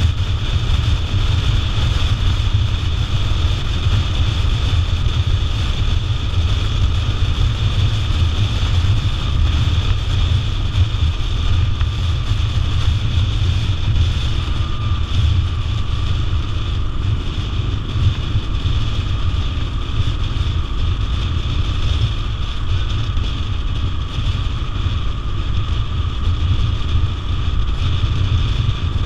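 Wind buffeting the microphone of a camera on a moving motorcycle, over the steady drone of the bike and its tyres at cruising speed. The noise is loud and even, with no change in speed.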